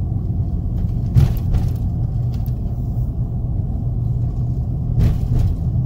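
Steady low rumble of a road vehicle being driven, its engine and road noise running evenly, with two brief knocks, about a second in and near the end.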